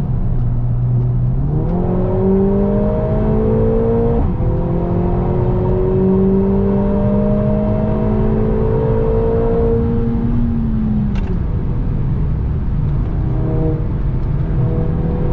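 Mercedes-AMG A45 S's turbocharged 2.0-litre four-cylinder accelerating hard, heard from inside the cabin over steady road rumble. The engine note rises, drops at an upshift about four seconds in, climbs slowly again, fades around ten seconds in, and picks up again near the end.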